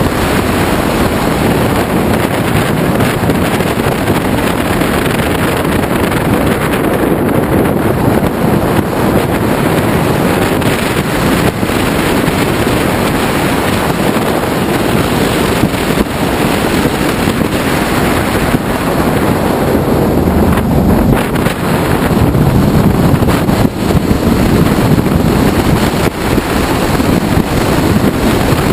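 Wind rushing and buffeting over the microphone of a moving Ducati Multistrada, with the motorcycle's V-twin engine running underneath. The rush grows a little louder about two-thirds of the way in.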